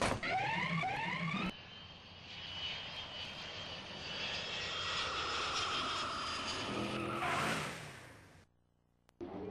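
Car engine revving, rising in pitch, then a steady rushing vehicle sound with a high whine as the car drives on. The sound cuts off suddenly near the end.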